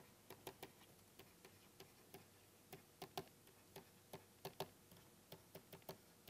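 Faint, irregular clicking, a few clicks a second, from a pen stylus tapping on a writing tablet.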